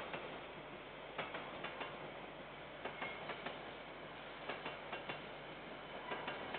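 Freight train of container wagons rolling past at a distance, its wheels clicking over rail joints in a string of light, irregular clicks over a steady hiss.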